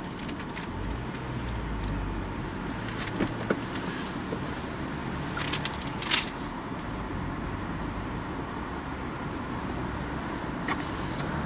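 A person shifts on a leather rear seat and climbs out of a car through the rear door, over a steady low rumble. There are two sharp clicks a little over three seconds in as the door opens, a louder click about six seconds in, and one more click near the end.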